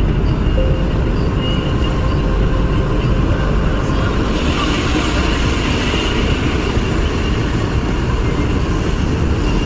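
Car driving on a wet highway in the rain: a steady rumble of road and engine noise, with a brief hiss swelling and fading about halfway through.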